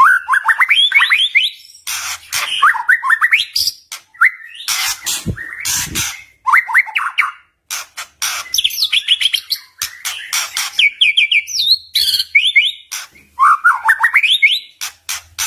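White-rumped shama singing: repeated phrases of quick rising whistled notes, broken up by loud crackling ticks.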